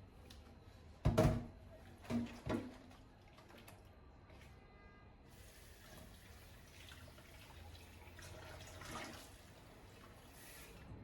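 A few sharp knocks, then a tap running into a sink as a steady hiss for about five seconds.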